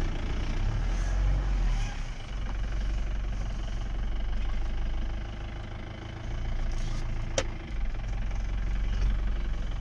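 Vehicle engine idling steadily, with one sharp click about seven seconds in.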